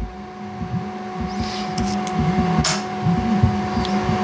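Vibe Slick 12-inch subwoofer in a sealed MDF box playing a hip-hop track through a stretch with no deep bass, so only a quick repeating pattern of higher bass notes comes through. A brief noise is heard about two and a half seconds in.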